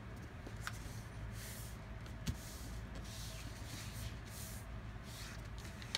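A sheet of paper rustling and sliding on a wooden tabletop as it is folded and creased by hand, in several short swishes, with a light tap under a second in and a sharper one a little after two seconds in, over a steady low hum.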